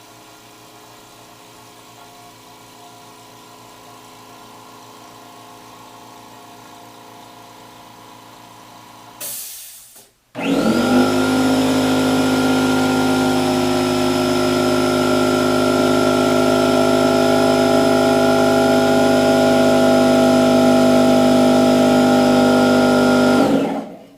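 A quiet electric air compressor running with a steady, low-level hum. After a brief break, a standard pancake air compressor runs much louder and steadier, then stops just before the end.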